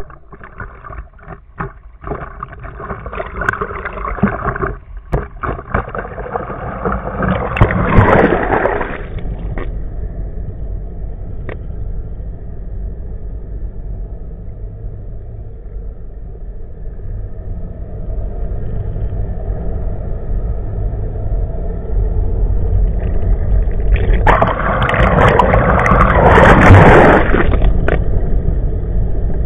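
Water rushing and gurgling past an underwater camera, over the steady underwater drone of a motorboat's outboard engine. Choppy splashing and knocks at the surface in the first few seconds, then two loud surges of rushing water, one about eight seconds in and a longer one about twenty-four to twenty-eight seconds in.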